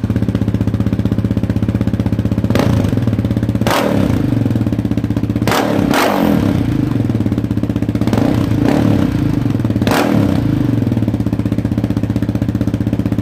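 2017 Yamaha Raptor 700R's single-cylinder four-stroke engine running through an FMF full exhaust with its spark arrestor fitted. It idles, with about five quick throttle blips that rise and drop back.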